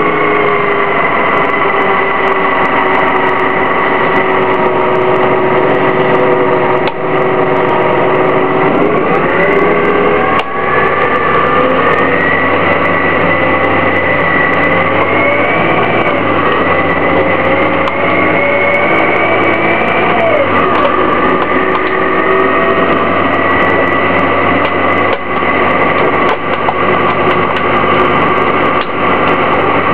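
Orion VII CNG transit bus with a Detroit Diesel Series 50G natural-gas engine and ZF Ecomat automatic transmission running under way, its engine and drivetrain whine rising in pitch about nine seconds in, wavering, and dropping back about twenty seconds in. Light rattles and clicks come through the whole time.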